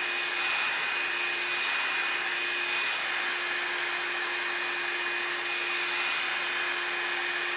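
Revlon hot air brush running on its low setting: a steady rush of air with a thin high whine and a low hum from its motor.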